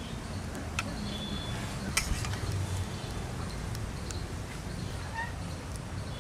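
A few light clicks of a metal spatula against the kadai and bowl as potato curry is served, over a steady low rumble. Faint short bird chirps come near the end.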